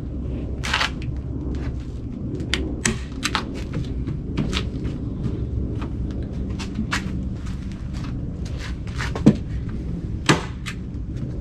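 Landscape fabric being handled and stapled into a wooden worm bin: scattered sharp clicks and rustles, with two louder snaps from a hand staple gun about nine and ten seconds in, over a steady low rumble.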